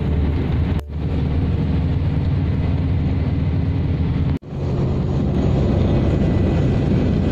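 Steady low rumble of a vehicle travelling at highway speed, engine and tyre noise heard from inside the cab. The sound cuts out sharply for an instant about a second in and again a little past halfway.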